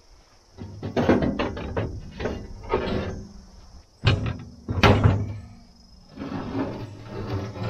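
Heavy steel parts clanking, knocking and scraping against a steel mower deck as a homemade scrap-iron puller and the freed blade hub are worked off the gearbox spline, in irregular strokes with the sharpest knocks about four and five seconds in.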